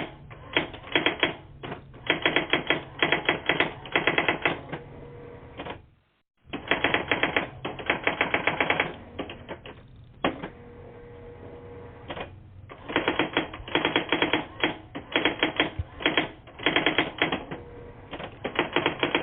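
Runs of rapid, typewriter-like key clicking in bursts of a second or so with short pauses between. It comes through a telephone voicemail line, so it sounds thin, and a faint steady tone can be heard in some pauses. The line cuts out completely for about half a second about six seconds in.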